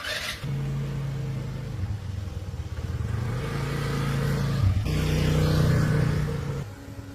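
A motor starts suddenly with a brief hiss, runs loudly at a steady pitch, shifts up in pitch partway through, then stops near the end.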